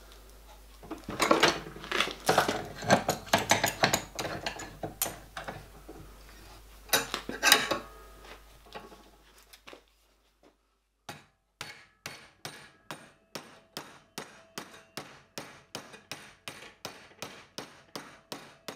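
Hammer blows forming the flange of an annealed copper tube plate over a wooden former held in a bench vise. First comes a flurry of loud, irregular blows, then after a short break a steady run of lighter taps, about two a second, with a slight ring.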